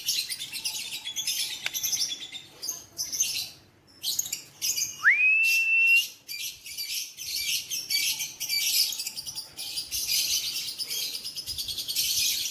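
Lovebird chattering in a fast, continuous high-pitched trill (the 'ngekek' song), with one rising whistle held for about a second near the middle.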